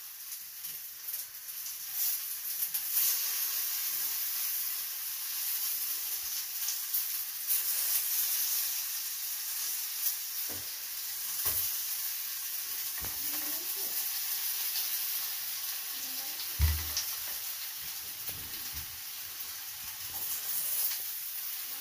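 Thin potato slices sizzling in mustard oil on a hot tawa (flat iron griddle): a steady hiss, broken a few times in the second half by light knocks as slices are laid on.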